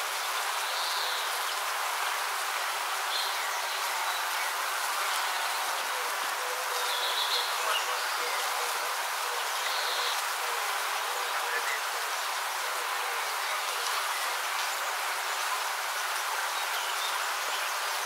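A mass of bees buzzing in a steady drone, with a few short high chirps over it.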